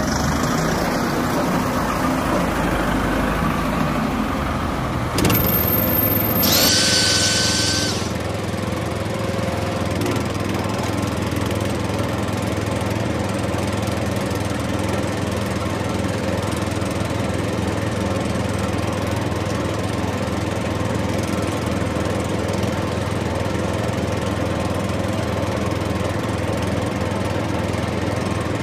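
Steady engine-like drone of a miniature DIY tractor running as it pulls a spring-tine cultivator through sand. A brief louder sound with a high tone comes about five seconds in and lasts a couple of seconds.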